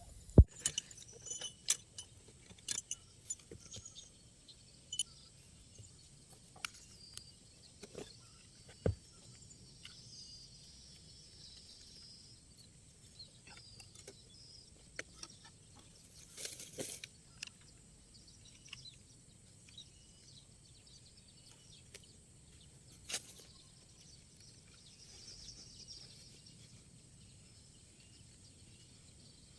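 Scattered sharp clicks, clinks and knocks of trapping gear being handled and set out, thickest in the first several seconds. There is a brief rustle about halfway through and faint small-bird chirps in the background.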